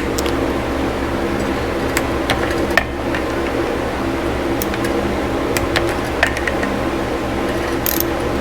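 Steady mechanical hum of a fan or shop machine, with a few scattered light clicks and knocks of tools on metal engine parts. Near the end a ratchet wrench starts clicking as bolts on the engine are tightened.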